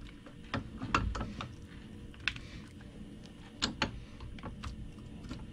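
Scattered light clicks and taps as hands handle a cordless ratchet and its new metal anvil head in a bench vise. A few sharper clicks come about a second in and again a little after three and a half seconds.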